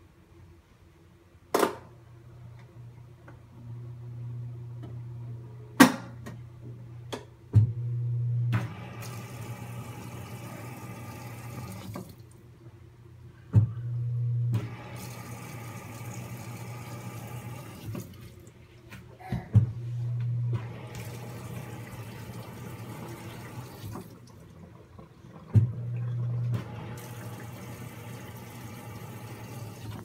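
Haier top-load washing machine agitating the wash in a repeating cycle: about every six seconds a sharp click, a brief surge of motor hum, then a few seconds of churning water before it pauses again, over a steady low hum.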